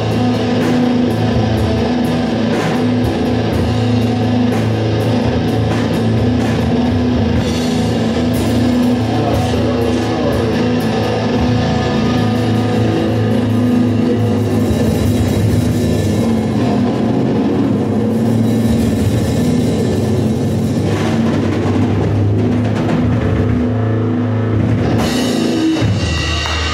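Live rock band playing loud: electric guitar, bass guitar and a drum kit with cymbals.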